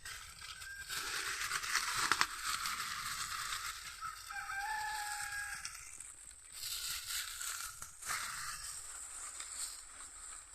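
A rooster crowing once, about four and a half seconds in, over a rustling, crackling noise that comes and goes.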